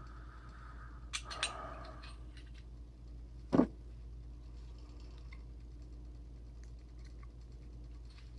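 Light clicks and handling of small pistol parts: a couple of clicks with a brief rustle about a second in, then one sharper knock about three and a half seconds in, over a low steady hum.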